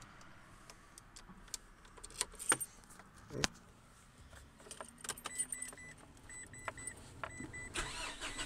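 Car keys jangling and clicking at the ignition of a Mitsubishi L200 pickup, with a short high electronic beep repeating from about halfway through. Near the end a burst of noise leads into the engine starting.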